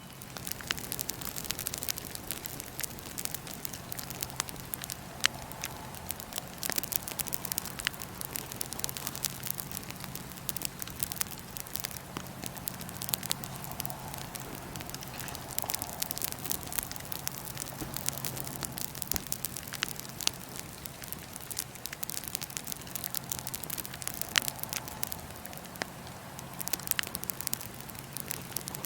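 Wood fire in a fire pit crackling steadily, with a constant scatter of small sharp pops and a few louder snaps.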